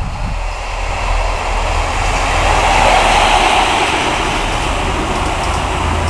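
Network Rail New Measurement Train, a yellow HST, approaching and passing close by. The leading Class 43 diesel power car's engine grows to its loudest about three seconds in, then the coaches run past with steady wheel and rail noise.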